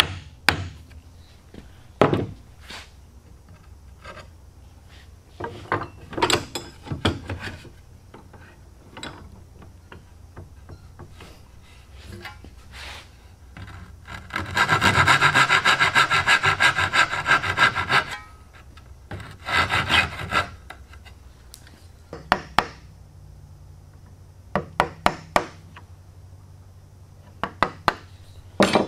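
Hand saw cutting into the end of a wooden tenon for a few seconds about halfway through, with a shorter spell of sawing just after. Before and after it come scattered sharp wooden taps and knocks from chisel work on the joint.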